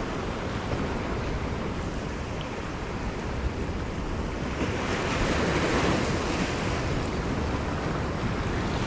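Sea surf washing against shore rocks, one wave surging louder about five seconds in and then falling back, with wind on the microphone.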